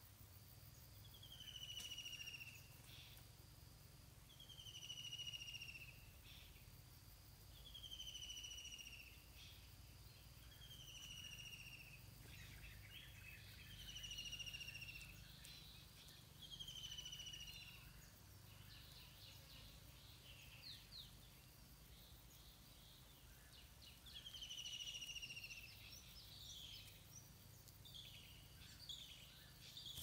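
Birdsong: a bird repeats a short, falling whistled call about every three seconds, with lighter twittering and chirps from other birds in between, thickest in the second half.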